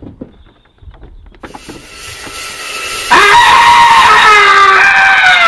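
Black & Decker 1200-watt 185 mm circular saw running: a rising hiss, then about three seconds in a loud high whine made of several tones, which drop in pitch near the end as the saw winds down.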